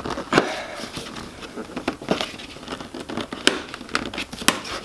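Plastic fog light bezel on a Subaru Crosstrek's front bumper being pulled by a gloved hand, creaking and rustling with several sharp clicks as its retaining clips are worked loose.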